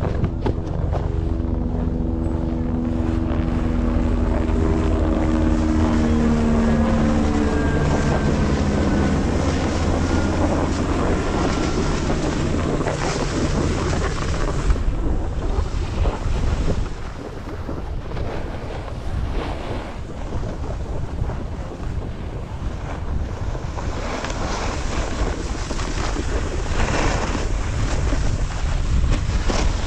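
Wind buffeting an action-camera microphone and the rush of skis and a snowboard sliding over groomed snow while moving downhill. A low hum with several steady tones is heard at first and fades out over the first eight seconds.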